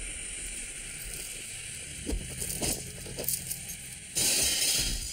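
Cartoon soundtrack effects: a few sharp metallic clanks and rattles, then a loud rushing noise lasting about a second near the end.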